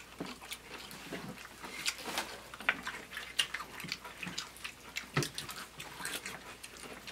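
People eating Doritos nachos: wet chewing with many scattered crunches and clicks, and forks tapping and scraping on plates.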